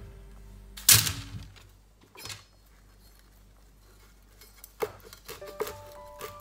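A single loud knock about a second in. From about two thirds of the way through, a kitchen knife knocks repeatedly on a plastic cutting board as rosemary is chopped, with soft background music coming in under it.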